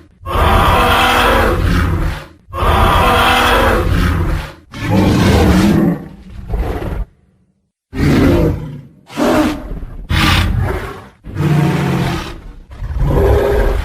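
Tyrannosaurus rex roar sound effects: a run of loud roars, one after another, each lasting one to two seconds, with a brief silent break a little past the middle.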